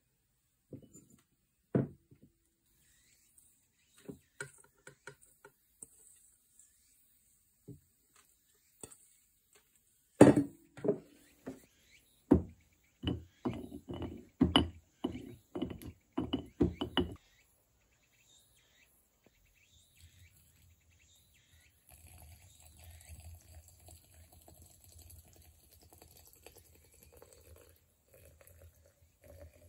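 A wooden tamper thuds down again and again into shiso seeds packed in a glass jar, about a dozen knocks over some seven seconds, pressing out the air. Near the end comes a faint, steady trickle as soy sauce is poured into the jar.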